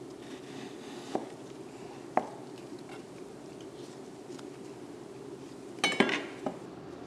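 Sharp metallic clinks and clanks over a steady low hum. A single knock comes about a second in and another at about two seconds, then a quick, louder cluster of clanks near the end.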